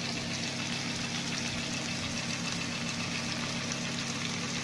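Moose liver frying in a pan, a steady even sizzle over a constant low hum.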